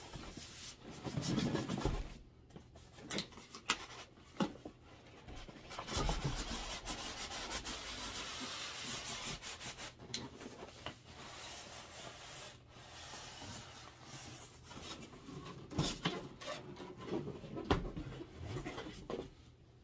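Styrofoam packing block scraping and rubbing against a tight-fitting cardboard box as it is slid out and the box is moved aside: irregular scraping with a few knocks.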